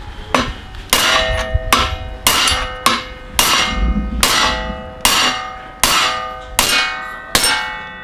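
Hammer blows on steel, about a dozen evenly spaced strikes at roughly one and a half a second, each leaving a metallic ring.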